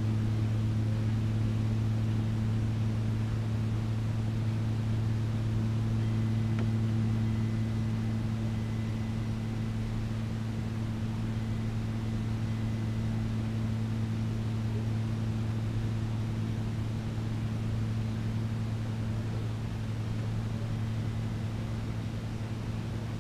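Steady low machine hum, unchanging throughout, with a faint thin high tone joining for several seconds about a quarter of the way in.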